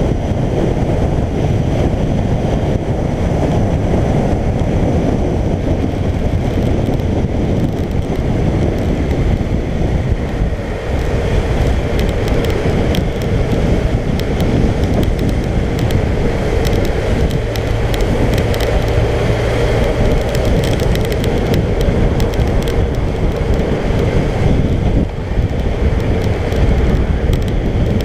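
Wind rushing over a bike-mounted microphone at highway speed, with the Suzuki GSX1400's inline-four engine running steadily underneath.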